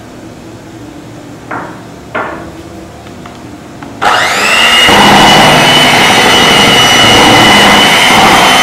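Electric cake mixer switched on about four seconds in: its motor whine rises quickly as it spins up, then runs steadily at high speed, beating milk into butter cake batter. Before it starts there are two short knocks.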